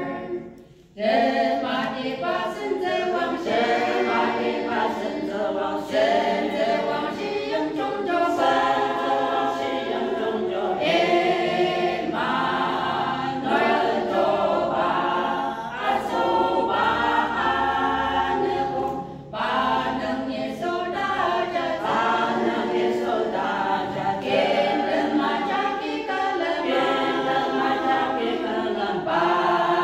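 Small women's choir singing unaccompanied, with a brief pause for breath near the start and another about two-thirds through.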